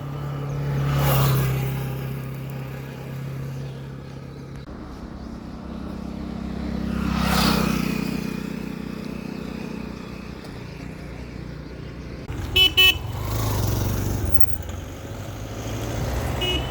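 Road traffic: vehicles passing one after another, each swelling and fading, with a low engine hum. A vehicle horn gives two short toots about two-thirds of the way through.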